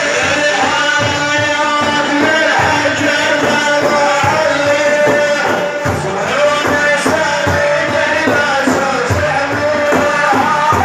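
A male maddah chanting a devotional song in praise of the Prophet, holding long sung notes, with frame drums beating a steady rhythm under the voice.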